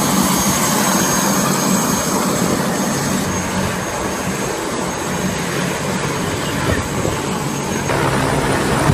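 Loud, steady engine-and-wind roar with no distinct events, with a faint high whine that stops near the end.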